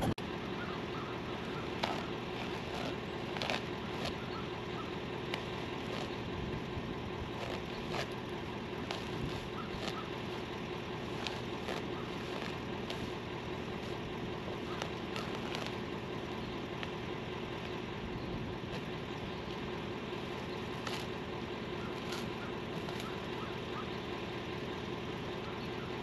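Pickup truck engine idling steadily, with scattered light clicks over it.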